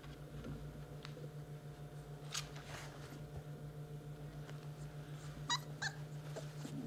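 Basset hound puppies giving two short, high whimpers near the end, over scattered small clicks and scuffles and a steady low hum.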